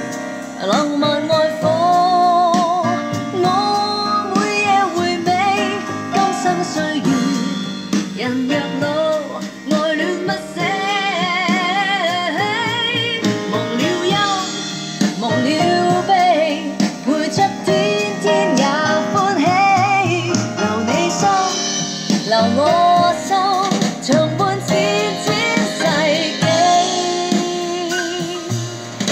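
A Chinese-language song with a singer over instrumental backing, played back through a repaired Phass car power amplifier as a listening test.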